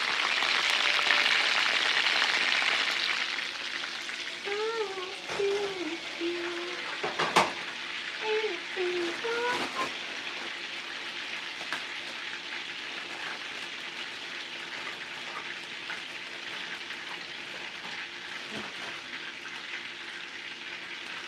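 Chicken frying in hot oil in a skillet, a steady sizzle. It is loudest for the first few seconds, while the pan is held up close, then settles into a quieter, even sizzle. A single sharp click comes about seven seconds in.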